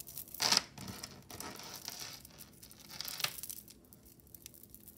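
Crinkling and rustling from jewelry being handled and sorted, with a louder rustle about half a second in, further short rustles later, and light clicks.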